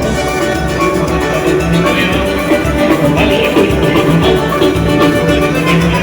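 Live band music: amplified instruments playing a steady, loud groove with no singing.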